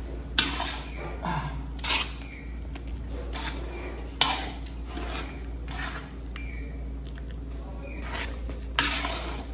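Cooking clatter: metal pots and utensils knocking and clinking, with sharp knocks about half a second in, near two seconds, about four seconds in and near the end.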